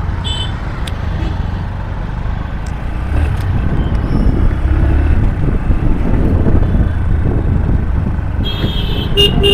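On-road motorcycle ride: heavy wind rumble on the microphone over engine and traffic noise, growing louder about three seconds in as the bike speeds up. A few brief high-pitched tones and clicks near the end.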